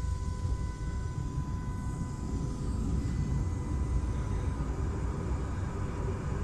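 Tram running on the line, heard from inside the car: a steady low rumble of wheels and running gear, slightly louder later on. A faint steady whine fades out about two seconds in.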